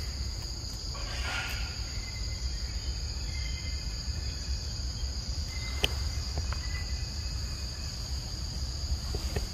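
Steady high-pitched drone of forest insects at two unchanging pitches, over a low rumble, with a faint sharp click about six seconds in.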